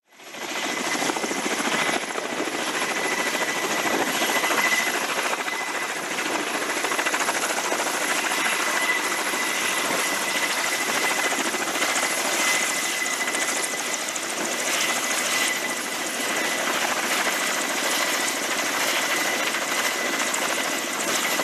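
Helicopter flying close by: a steady, loud rotor and engine noise with a thin high whine, cutting in suddenly at the start.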